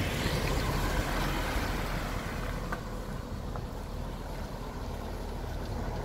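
A motor vehicle passing on the street, its engine and tyre noise loudest at the start and fading away over the first few seconds.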